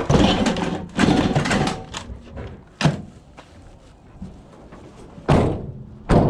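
Clattering and knocks of a scrap microwave being picked up and loaded into a van, with a sharp knock about halfway and two loud thuds near the end.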